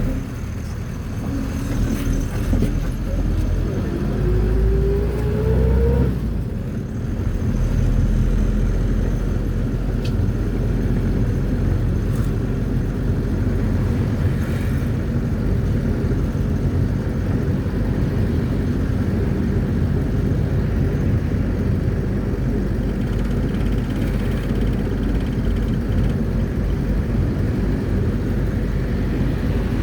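Mercedes-Benz T1 minibus underway, heard from inside: the engine rises in pitch as it accelerates, drops away at a gear change about six seconds in, then runs on steadily with low road rumble.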